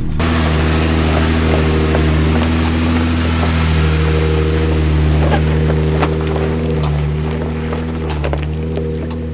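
Jeep Wrangler Rubicon's engine running at a steady low speed as it crawls over rock, with occasional sharp clicks of rock under the tyres.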